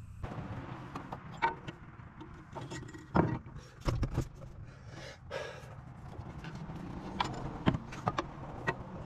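Scattered clinks and knocks of a CV axle being handled and worked into place under the front of an SUV, with a few sharper knocks about three, four and nearly eight seconds in.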